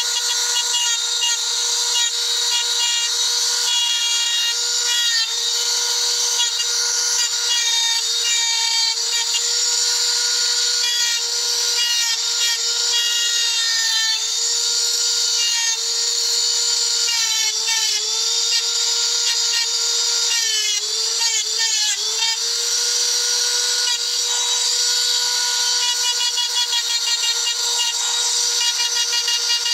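Small handheld electric grinder with an engraving bit cutting lines into a stone slab: a steady high-pitched motor whine over a gritty grinding hiss. The whine's pitch dips and wavers a few times a little past the middle.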